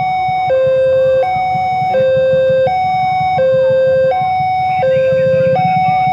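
Railway level-crossing warning siren, really loud, alternating between a lower and a higher tone about every three-quarters of a second, warning that a train is approaching. A low rumble runs beneath it.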